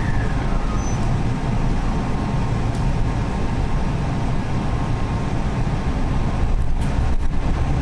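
Nishitetsu 8000 series limited express train running, heard from inside the car behind the cab: a steady rumble of wheels and running gear on the rails, with a few sharp clicks near the end.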